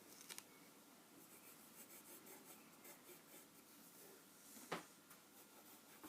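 Faint, quick repeated strokes of a drawing tool scratching on paper, with one sharp click late on.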